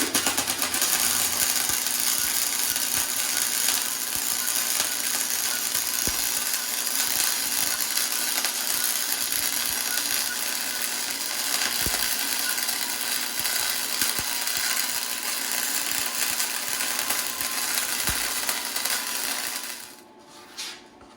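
Chicago Electric Flux 125 flux-core wire-feed welder laying a bead: a steady, dense crackling arc that starts abruptly and cuts off about twenty seconds in.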